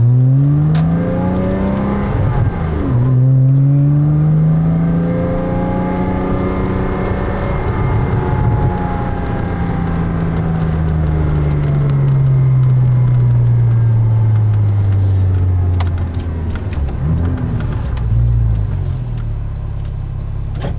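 Porsche Cayman S flat-six through an AWE Tuning stainless catback exhaust, heard from inside the car under acceleration. The revs climb, drop sharply at a gear change about two and a half seconds in, then climb again. From about eight seconds the revs slowly fall away, ending lower and uneven.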